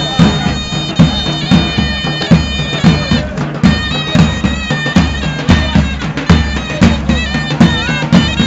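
Davul and zurna playing a sinsin dance tune: the zurna's ornamented reed melody with held notes over the bass drum's steady beat.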